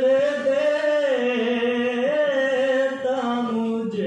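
A man singing a naat, an Islamic devotional poem, unaccompanied into a microphone, holding long notes that bend and waver in pitch.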